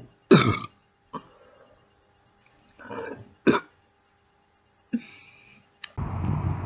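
A woman burping on command several times: two loud burps, about a third of a second in and about three and a half seconds in, with shorter, quieter burps between and after. Near the end a steady background noise sets in.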